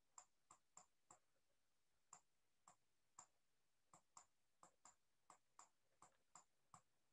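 Faint, irregular clicks of a stylus tip tapping on a tablet screen while handwriting, about two or three a second.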